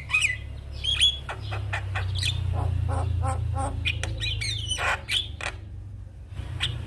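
Javan myna singing, a fast, varied run of chattering notes, whistled glides and harsh squawks with a short pause near the end, over a steady low hum.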